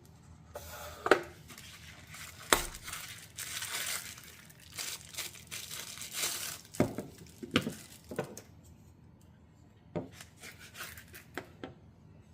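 Handling and unpacking of a boxed multitool: light packaging noise from the box and its contents, with a few sharp clicks and knocks scattered through.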